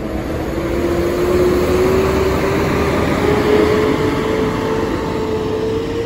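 Intercity coach bus engine running as the bus moves through, with a steady whine that rises slowly in pitch.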